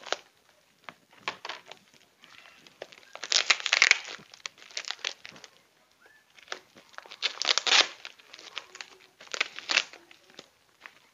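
Plastic parcel wrapping crinkling and tearing in irregular bursts as it is picked and cut open by hand.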